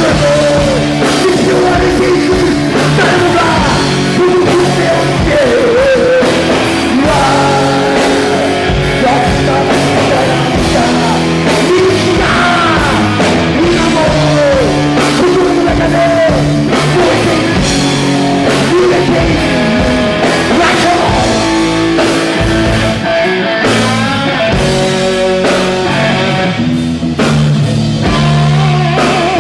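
Rock band playing live at full volume: electric guitar, bass and drums, with singing.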